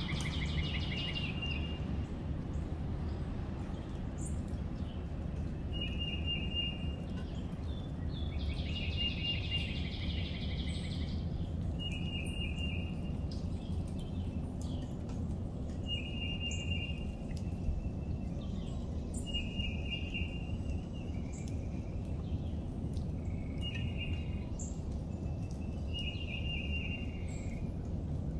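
Wild birds singing outdoors over a steady low background rumble: one bird repeats a short song phrase about every three to four seconds, and a longer trilling phrase comes twice, at the start and about eight seconds in.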